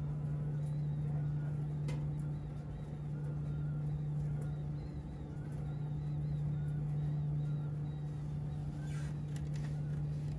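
Steady low hum of laundromat machines running, with a few light clicks and clinks, a cluster of them near the end as coins are fed into a coin-op dryer's slot.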